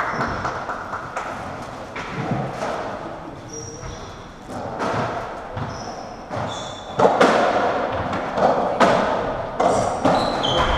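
Racketball being played on a squash court: the ball struck by rackets and hitting the walls and wooden floor, each hit echoing in the court, with shoes squeaking on the floor. The hits come sparsely at first, then quicker and louder in the last few seconds as the rally gets going.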